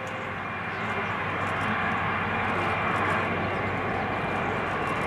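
Boeing 747-400F freighter's four jet engines running at low power as it rolls slowly after landing, a steady jet noise growing slightly louder.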